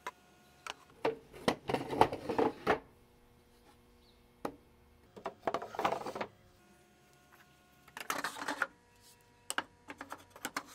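Wooden cabinet drawers being slid out and pushed back in, wood scraping and knocking on wood in four or five short clattering bursts.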